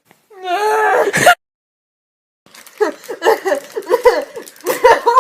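A woman's voice making nonverbal noises: a wavering, pitched squeal that ends in a rough burst and cuts off, then after about a second of silence a fast run of short, pitched vocal sounds.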